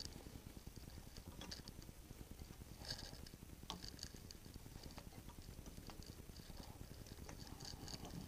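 A few faint clicks and light clinks of metal as the Atlas lathe's change gears and their fittings are handled, over a low steady hum.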